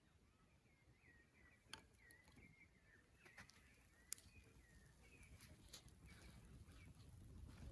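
Faint birdsong: a run of short, wavering chirps, with a few sharp clicks over it, the loudest about four seconds in.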